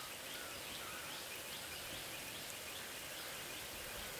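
A steady hiss with faint small-bird chirps repeating over it.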